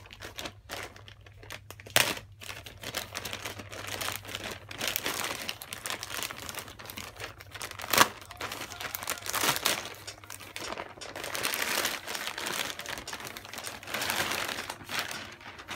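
Plastic poly mailer bag crinkling and tearing as it is ripped open by hand and pulled off a cardboard box, with a sharp snap about 2 s in and a louder one about 8 s in.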